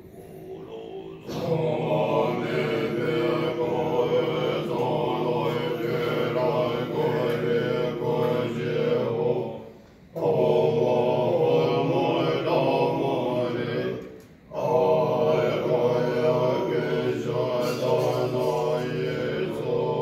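Group of Tibetan Buddhist monks chanting a mantra together, starting about a second in, with two short breaks for breath, one about halfway and one about two-thirds through.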